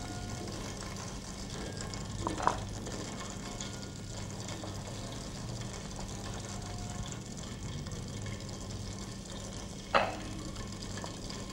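Quiet room tone with a steady low hum, and a cleaver slicing a fried beef loaf on a wooden cutting board, giving two brief knocks: one about two and a half seconds in and one near the end.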